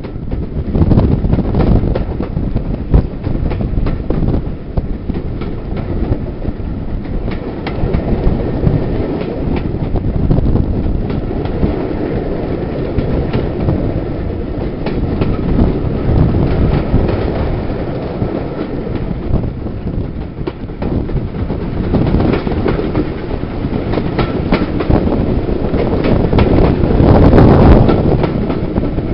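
Railway carriage running at speed, heard from an open window: a steady heavy rumble of wheels on the track with repeated clicks as the wheels cross rail joints. It grows louder near the end.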